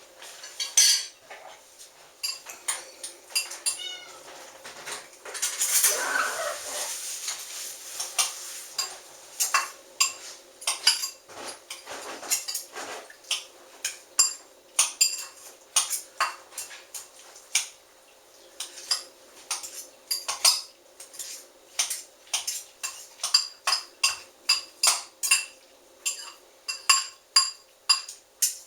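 Cutlery clinking and scraping on plates and a serving dish, many short sharp clinks that come at a fairly steady pace in the second half. About five to seven seconds in there is a longer, louder sound.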